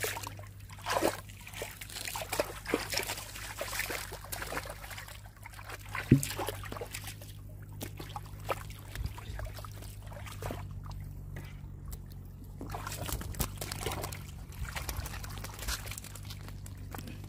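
Hands splashing and sloshing in shallow muddy river water while groping for fish, in irregular bursts, with one sharp slap about six seconds in. A steady low hum runs underneath.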